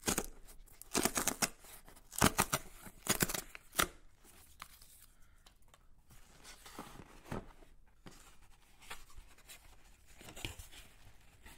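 Tear strip being ripped along a corrugated cardboard box in several short, sharp rips over the first four seconds, then softer cardboard rustling as the torn lid is lifted open.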